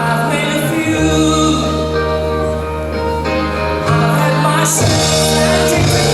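Music playing: a song with long held bass notes and a melody over them.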